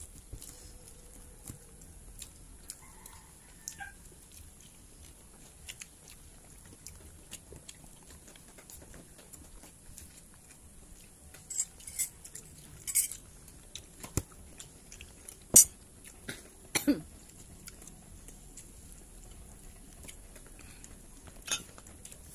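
Eating at the table: quiet chewing and hands working rice on banana leaves, with scattered sharp clicks and knocks of things being handled and set down, bunched in the second half and loudest a little past the middle.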